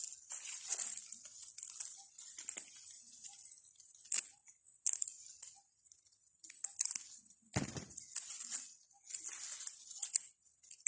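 Dry peanut plants rustling and crackling in irregular bursts as they are pulled and handled by hand, with a few sharp snaps and a heavier low thump about eight seconds in.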